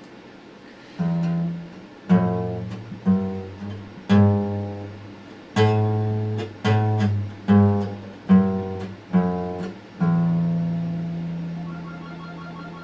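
Steel-string acoustic guitar played slowly: starting about a second in, a phrase of about a dozen plucked notes and chords, each decaying, with the last chord left ringing and fading away.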